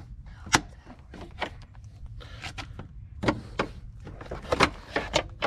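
Metal pry bar and plastic side-skirt trim on a Porsche Panamera clicking and creaking as the molding is levered at its clips. A sharp click about half a second in is the loudest; more clicks and short creaks follow, several close together near the end.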